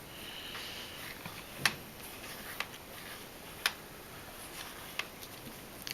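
A few light, sharp clicks, about a second apart, from small parts of a dismantled camera zoom lens being handled on the bench.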